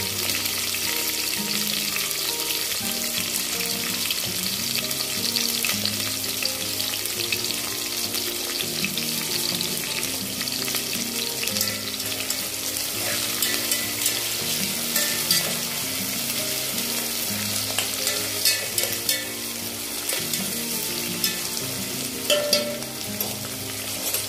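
Chopped onions and green chillies sizzling in hot oil in an aluminium pot, stirred now and then, with sharp clicks of the spoon against the pot. A soft melody plays underneath.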